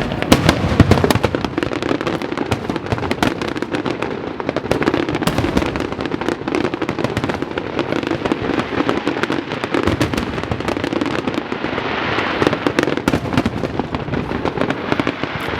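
Aerial fireworks going off in quick succession: a dense, continuous run of bangs and crackles, with a thicker swell of crackling about three-quarters of the way through.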